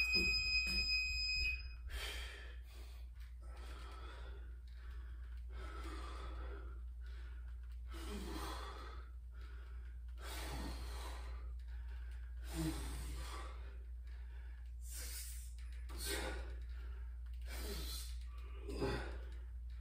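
A man breathing hard through a set of barbell overhead presses, one forceful breath roughly every second, over a steady low hum. A high steady electronic tone sounds for the first second and a half.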